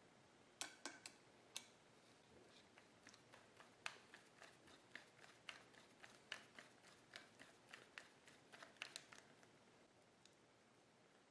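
Faint, irregular small metallic clicks and ticks of a screwdriver turning the screw that fastens a carbide cutter insert to a square tool bar, stopping about nine seconds in.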